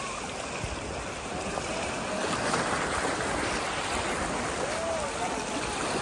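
Sea waves washing in over a flat rocky shore: a steady rush of surf and swirling water that swells a little about two seconds in.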